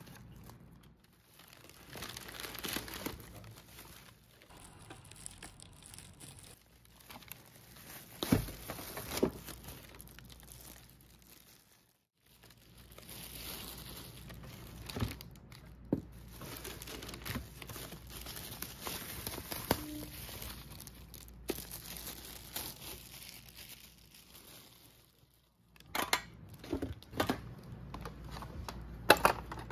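Bubble wrap and tissue paper crinkling and rustling as packed items are unwrapped by hand in a cardboard box, with scattered light knocks and taps from the packaging being handled. The rustling drops out briefly twice.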